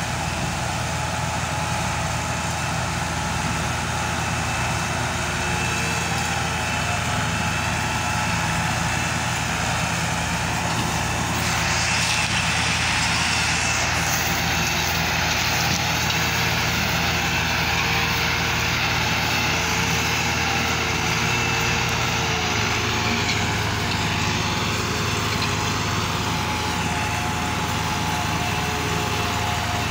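Massey Ferguson 260 tractor's three-cylinder diesel engine running hard and steadily while hauling an overloaded sugarcane trolley, straining under a load heavy enough to lift its front wheels. A second tractor's diesel engine runs alongside.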